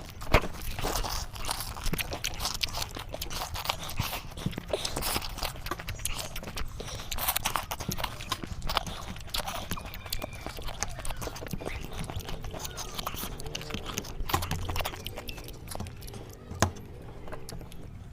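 People biting into and chewing whole lemons, with a continuous run of wet, irregular crunching and smacking. Sharp clicks stand out just after the start and near the end.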